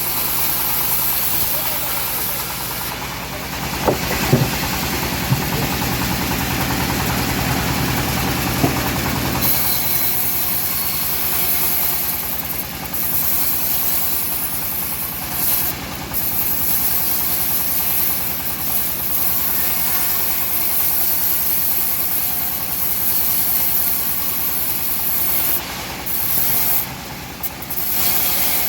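Engine of a homemade bandsaw sawmill running steadily, with a few sharp knocks about four seconds in and again near nine seconds, where the sound changes and then carries on.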